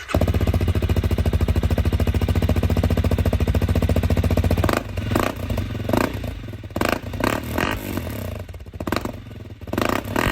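Honda CRF300L's single-cylinder engine running through an Arrow slip-on exhaust with the dB killer in. It idles with an even, fast beat for about five seconds, then is revved in a series of short throttle blips.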